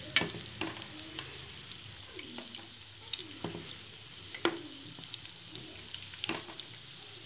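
Gram-flour-battered cauliflower pakoras deep-frying in hot oil on medium heat, a steady sizzle. Several sharp knocks and scrapes come through it as a slotted spatula and tongs turn the pieces against the pan.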